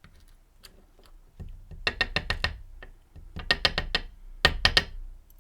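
Quick runs of small, sharp clicks and taps from metal lock parts being handled while a dimple lock cylinder is taken apart, about ten clicks a second in three short bursts.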